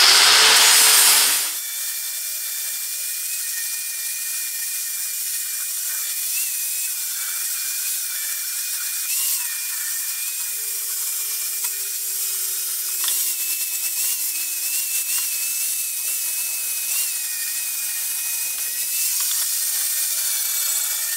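Grinder grinding a welded metal clutch cover, rounding off its edge: a steady high whine over a harsh grinding hiss, louder for about the first second and a half.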